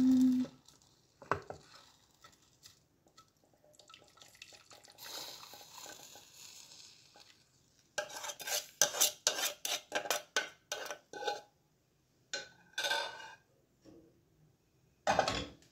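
Metal spoon scraping and tapping against glass bowls while spooning out liquid gelatin mixture: a few scattered clinks, then a quick run of taps about halfway through, and one sharper knock near the end.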